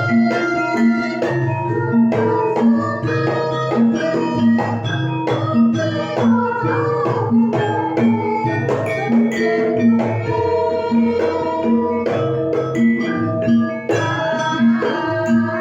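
Javanese gamelan ensemble playing a piece: struck metallophone tones over a steady, regular beat.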